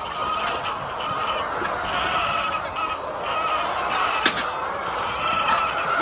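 A large flock of laying hens clucking and calling, many voices overlapping without a break. A single sharp click stands out about four seconds in.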